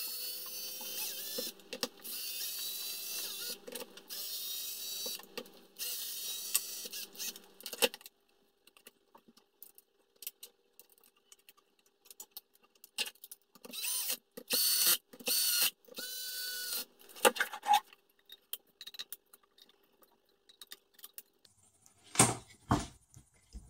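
Cordless drill-driver whining in about seven short runs of one to two seconds each, driving screws into a plastic RC truck bumper. Four runs come close together at first and three more follow a few seconds later. Light clicks and knocks of handling parts come between the runs, with a couple of sharper knocks near the end.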